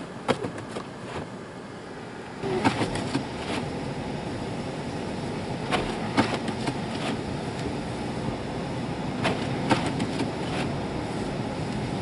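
Car cabin noise while driving on a slushy, snow-covered road: a steady tyre and road hiss that grows louder about two and a half seconds in, with a few scattered short clicks and knocks.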